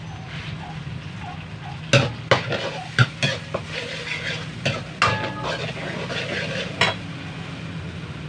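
Metal ladle stirring sardines in sauce in a metal wok, knocking and scraping against the pan about half a dozen times, over a faint frying sizzle.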